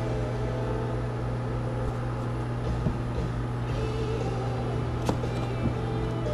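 A steady low hum, with a few faint taps and rustles of hats being handled in a plastic storage tote.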